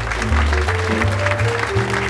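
Background music with a steady bass line and melody, over light applause.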